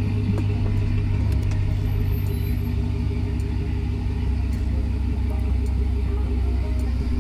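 Pickup truck engine running steadily, a continuous low hum, with the deepest part of the sound growing stronger about halfway through.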